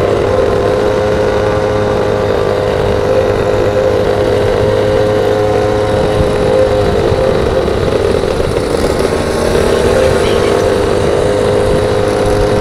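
Small gas scooter (goped) engine running at steady high revs on the move, with road and wind noise; the revs waver briefly about eight seconds in, then hold steady again.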